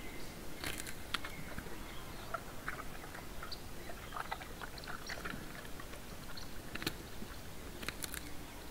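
Bear feeding, chewing and crunching its food with irregular sharp snaps and clicks.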